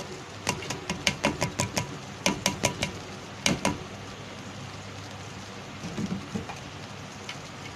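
Metal spoon clicking and scraping against the rim and sides of a steel cooking pot while spreading boiled rice as the top layer of biryani: a quick run of sharp taps, about four a second, for the first few seconds, then a few softer ones near the end.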